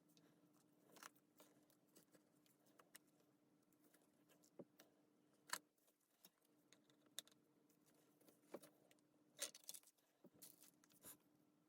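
Faint, scattered clicks and light taps of small hard parts and tools being handled, irregular, with a sharper click about five and a half seconds in and a short cluster about nine and a half seconds in, over a faint steady hum.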